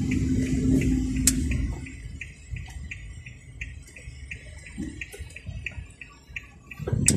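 Car turn-signal indicator ticking steadily about three times a second inside the cabin as the car turns. A low steady hum under it fades about two seconds in, and a short thump comes near the end.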